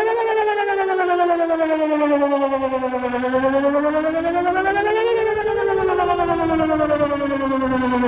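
Whelen 2910 electronic outdoor warning siren sounding its wail tone during a test. The pitch rises and falls slowly: it falls for about three seconds, climbs for about two to a peak near the middle, then falls again.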